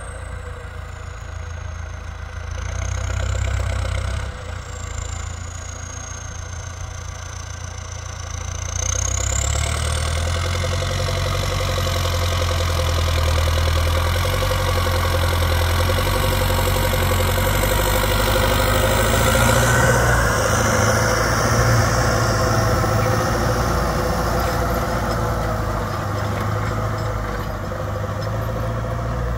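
Belarus MTZ 1025.4 tractor's turbodiesel running through a straight-pipe exhaust, with a high turbo whistle that dips and rises over the first few seconds. About nine seconds in the engine grows louder and the whistle climbs higher, holding there until it eases slightly near the end.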